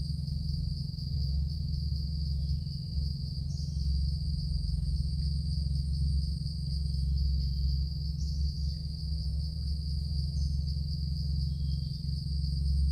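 Steady, high-pitched insect chorus trilling without a break, over a continuous low hum, with a few short chirps scattered through.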